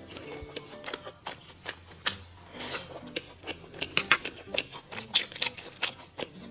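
Close-miked eating of mala xiang guo: crisp crunching bites and wet chewing, with sharp crunches scattered irregularly and the loudest coming in the second half.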